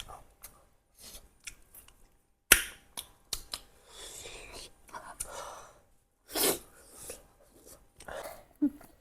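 Close-miked eating sounds of spicy duck curry: chewing and wet mouth noises with scattered clicks, one loud sharp click about two and a half seconds in, and a loud breathy burst like a sharp exhale or sniff a little after six seconds.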